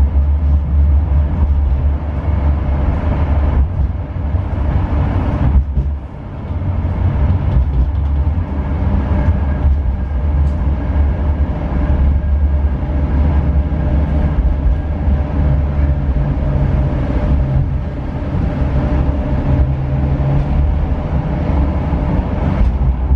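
Steady low rumble of a moving vehicle, with faint steady whining tones above it; it dips briefly about six seconds in.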